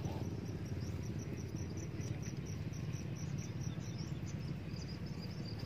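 Insects chirping in short, repeated high-pitched notes over a steady low rumble.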